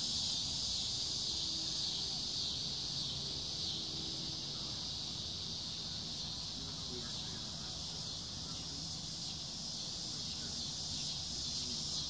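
Cicadas singing in a non-stop chorus: a steady high-pitched buzz that holds without a break.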